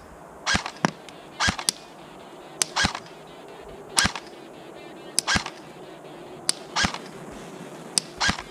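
LCT AK-12 airsoft electric gun firing single shots, about seven in all, a second or so apart, several with a short sharp click close beside the shot.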